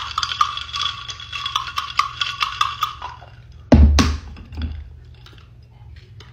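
Ice clinking and rattling in a glass can cup as the drink is mixed: a rapid run of clinks with the glass ringing, stopping about three seconds in. A single sharp knock follows just before four seconds.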